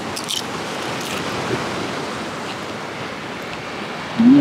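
Ocean surf washing against jetty rocks, a steady rush of waves. Just before the end, a short vocal sound from a man.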